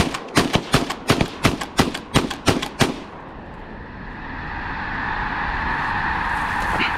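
A rapid volley of about a dozen shotgun blasts from several hunters in the first three seconds. Then the massed calling of thousands of snow geese as the flock lifts off, building over the last few seconds.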